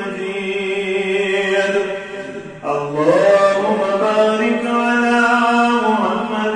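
A man's voice chanting Arabic in a slow, melodic recitation with long held notes. About two and a half seconds in he breaks for a breath, then comes back on a rising note and holds it.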